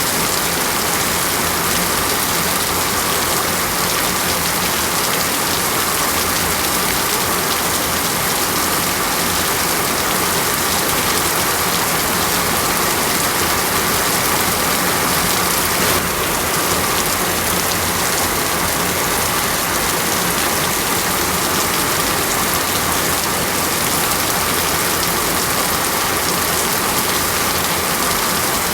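Steady heavy rain falling on foliage, a dense unbroken hiss.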